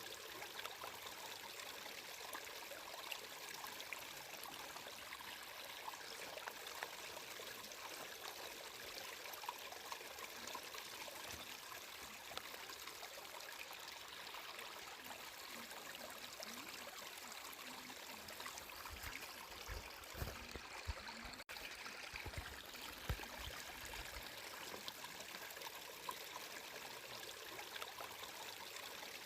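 Water flowing steadily in a stream, a continuous trickling rush. A few low thuds come about two-thirds of the way through, with a momentary break in the sound among them.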